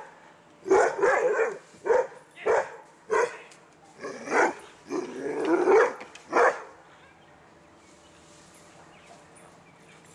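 A dog barking, about seven barks over six seconds with one longer bark that rises in pitch, then falling quiet.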